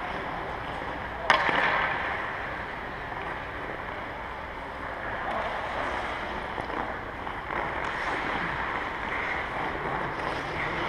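Ice hockey skates scraping and carving on the rink ice, with the clatter of sticks and pucks, in a large echoing arena. About a second in, one sharp crack rings out through the hall.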